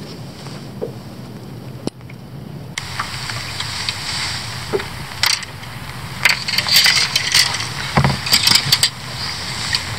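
An angler moving about in a small boat: rustling, scrapes and scattered clicks and knocks, busiest in the second half with one sharper knock near the end, over a steady hiss that gets louder about three seconds in.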